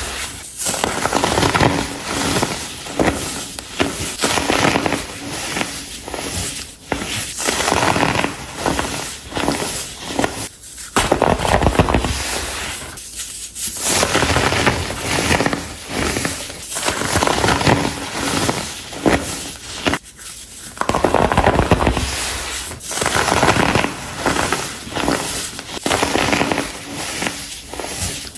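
Pressed baking soda blocks being crushed, giving a dense run of crunching and crackling in bursts of a few seconds with short pauses between them.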